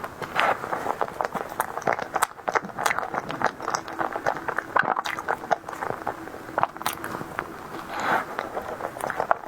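Close-up eating sounds: a person biting and chewing a soft tiger-skin dessert, a dense run of irregular wet mouth clicks and smacks.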